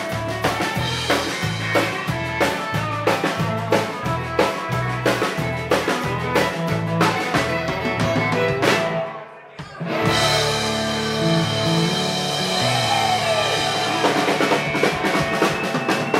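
Live country band playing: fiddle, acoustic and electric guitars and a drum kit driving a steady beat. About nine seconds in the band stops dead for a moment, then comes back in on held chords, with the drums building up again near the end.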